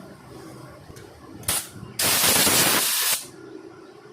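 Compressed-air blow gun blasting dust and rust out of a motorcycle disc brake caliper: a short puff of hissing air, then a steady blast lasting just over a second.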